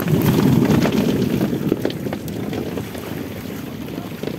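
Water splashing and sloshing with wind on the microphone and a few sharp knocks, loudest in the first second or so and then easing.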